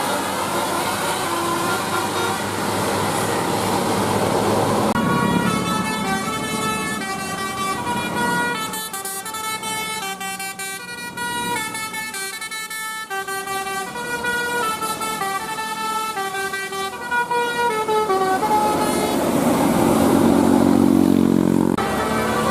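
A tour bus's telolet Basuri musical air horn playing a tune of short, quick notes for about thirteen seconds. Before and after the tune there is loud, noisy vehicle sound.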